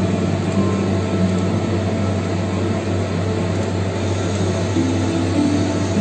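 Steady low hum and rushing noise, with soft sustained notes of background music shifting pitch every second or so over it.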